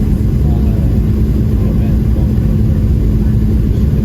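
Steady low rumble of a Boeing 737-700's jet engines and airflow heard inside the passenger cabin, with a constant hum.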